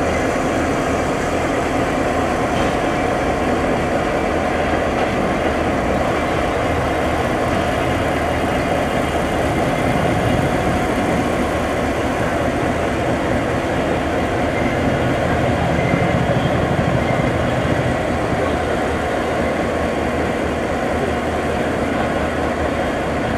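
EMD GP7 diesel locomotive's 16-cylinder 567 two-stroke engine idling steadily.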